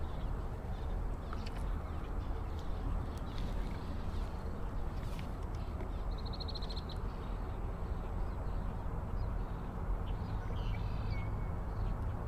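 Steady low rumble of wind and moving water around a small wooden boat, with a bird's short, rapid chattering call about six seconds in and fainter bird calls near the end.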